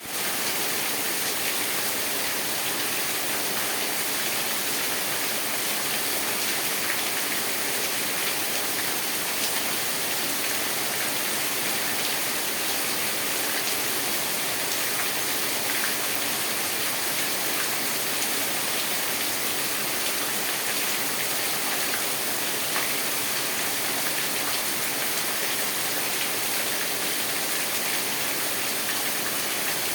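Steady rain falling, an even hiss with scattered raindrop ticks.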